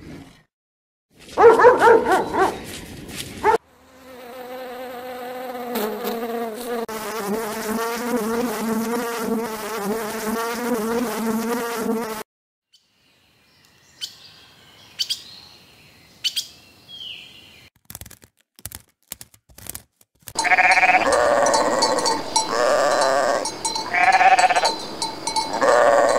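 A run of separate animal sounds: a loud call, then a steady wavering buzzing drone for about eight seconds, a few faint clicks and a short chirp, and near the end repeated bleating.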